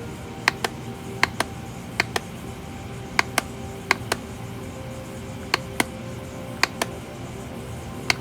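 Sharp clicks in pairs, about eight pairs, each pair a fraction of a second apart and irregularly spaced, over faint steady music.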